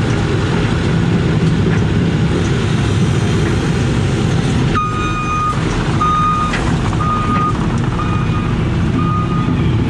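Excavator's diesel engine running steadily, heard from inside the cab. About halfway through, a reversing alarm on nearby equipment starts beeping, about once a second.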